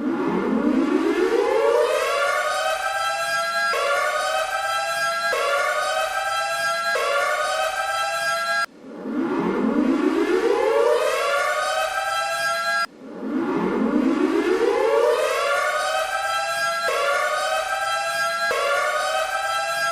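Custom hockey goal horn with a siren-like sound: a loud wail that rises in pitch over about two seconds, then holds at a series of short steady pitches. It cuts off and winds up again about 9 and 13 seconds in.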